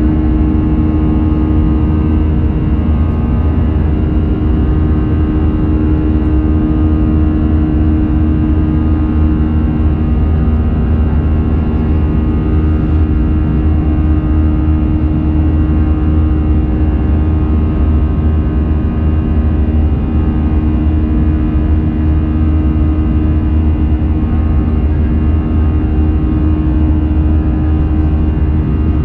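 Airbus A319 airliner in flight, heard from inside the passenger cabin: a steady jet-engine and airflow rumble with several constant humming tones over it, unchanging throughout.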